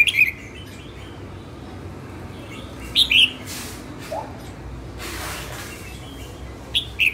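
Red-whiskered bulbul singing short, bright whistled phrases of two or three quick notes: one at the start, another about three seconds in, and another near the end.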